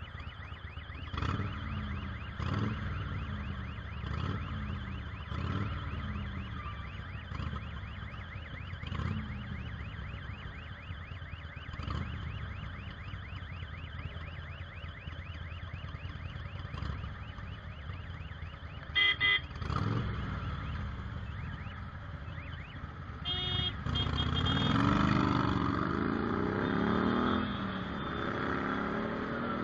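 Motorcycle engines idling in city traffic, with a quick double horn beep about two-thirds of the way in and another short beep soon after. Near the end the engines rev up and rise in pitch as the bikes pull away.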